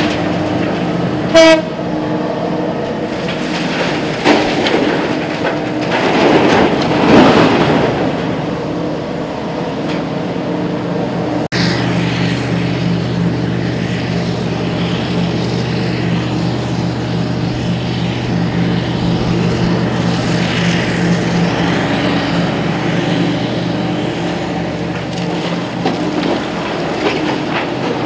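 Hitachi EX8000 mining excavator's diesel engines running with a steady low drone and mechanical clatter. A brief horn toot sounds about a second and a half in.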